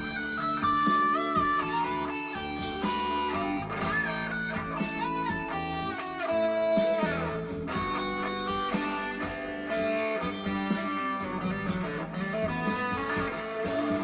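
Fuzz-toned electric guitar playing a slow lead line with string bends and long held notes over a rock backing track with steady drums.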